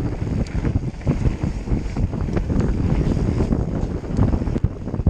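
Wind buffeting the microphone while an electric mountain bike rolls fast down a rough trail, its tyres rumbling and its frame and parts rattling, with frequent sharp knocks from bumps.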